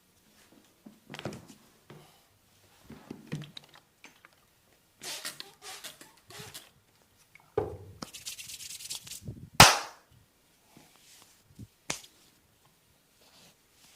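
Back massage sounds on skin: rubbing and brushing strokes with scattered light taps, and one sharp, loud crack about ten seconds in.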